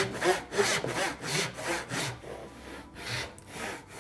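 Hand saw cutting into wood in quick back-and-forth strokes, about three a second, sawing the kerf for one side of a groove. The strokes lighten for a moment about halfway through, then pick up again near the end.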